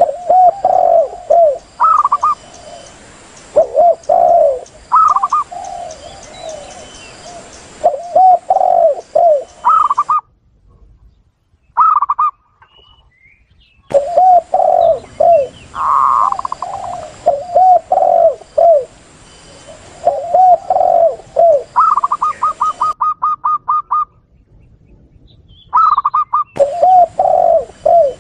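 Spotted doves and zebra doves cooing, a lure recording for calling wild doves. Low repeated coo phrases alternate with higher, quicker runs of notes. The recording breaks off twice into silence, at about ten seconds in and again near the end.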